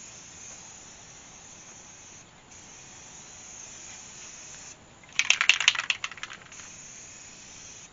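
Aerosol spray-paint can hissing in short passes with brief stops between them. A bit past halfway comes a loud burst of rapid rattling clicks lasting about a second, then the spray hiss resumes.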